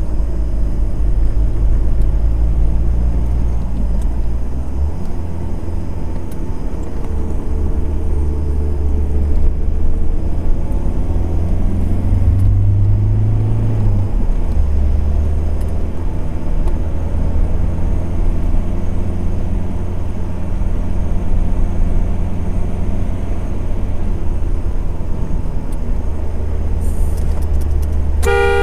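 Car driving on the road, a steady low engine and road rumble whose pitch shifts a few times. A car horn toots briefly right at the end.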